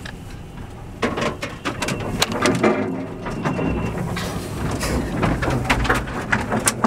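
Inside a van's cab driving slowly over a rough dirt track: a low road rumble with irregular knocks and rattles from the body and loose gear as it jolts over bumps, starting about a second in.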